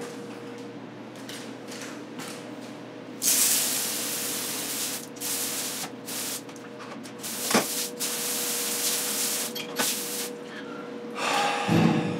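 Squeeze-handle hose sprayer blasting water onto the floor, a loud hiss that starts about three seconds in, cuts out and restarts a few times, and stops about ten seconds in. A faint steady hum runs underneath.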